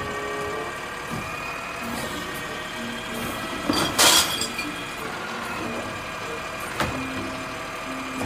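Automated side-loader garbage truck running steadily while its hydraulic arm grabs a wheeled trash cart, lifts and tips it into the hopper, then sets it down. A loud clatter about four seconds in as the cart is dumped, with sharp knocks near the start and near the end.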